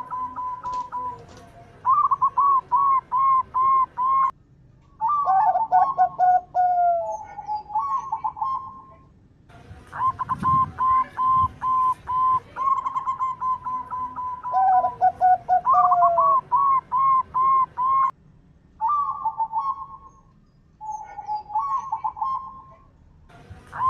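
Zebra dove (local perkutut) song: repeated phrases of quick staccato cooing notes, some ending in lower drawn-out notes, with short pauses between the phrases.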